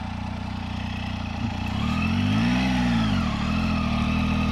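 Triumph Tiger 800XCx motorcycle's three-cylinder engine running steadily. About two seconds in it revs up and back down over a second and a half, then settles to a steady, slightly louder run.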